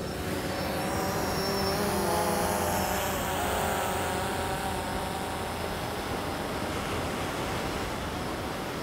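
DJI Phantom quadcopter's propellers whining, rising in pitch over the first few seconds as the drone climbs and flies out, over a steady rush of wind and surf.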